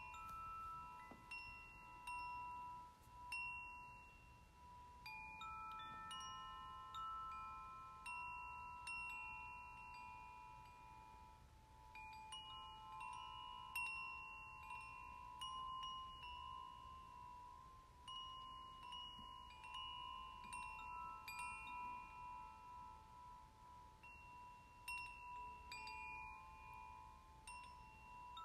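Wind chimes ringing softly. Clear metal tones at several high pitches sound at irregular moments, and each one lingers for a second or more, overlapping the next.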